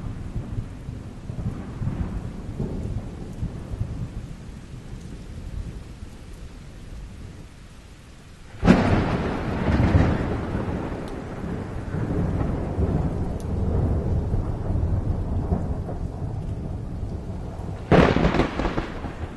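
Thunderstorm with rain falling: a low rumble of thunder dies away, then a sharp thunderclap about halfway through rolls on into a long rumble, and another sharp clap breaks near the end.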